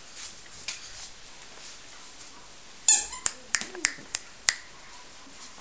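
Bulldog puppy at play on a tile floor: a short, loud, high squeak about three seconds in, followed by a quick string of sharp clicks and taps.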